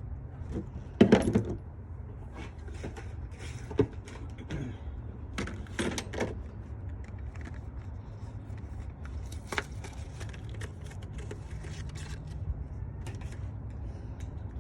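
Metal hand tools clinking and knocking against engine parts during a spark plug change, in scattered sharp strikes. The loudest comes about a second in. A steady low hum runs underneath.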